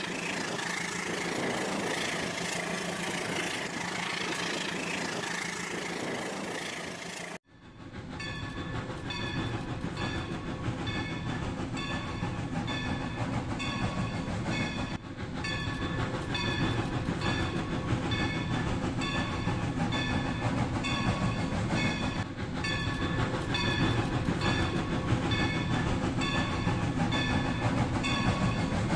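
Battery-powered Rail King toy train running on its track, with its motor and wheels clattering and the toy's electronic train sounds playing. A cut about seven seconds in changes the sound to a steady rhythmic pattern with bright repeating tones.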